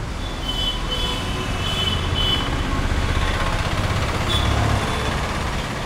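Street traffic: a low vehicle engine rumble that swells and then falls away about five seconds in, with a few short high-pitched beeps over it.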